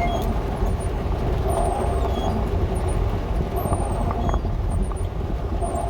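Dodge A108 van driving slowly over a muddy, rutted dirt road, heard from inside the cab: a steady low engine and road rumble with a mid-pitched sound that swells and fades every second or two.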